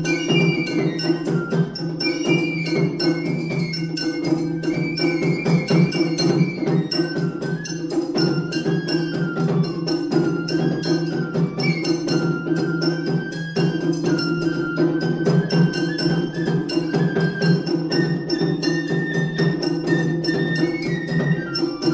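Japanese matsuri bayashi festival music: a shinobue bamboo flute plays a held, gently wavering melody over rapid, continuous strokes on shime-daiko and a larger taiko drum.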